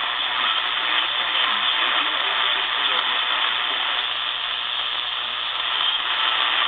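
Steady static hiss from a radio receiver, cut off sharply above the upper mids so it sounds muffled and narrow, with a faint low hum underneath.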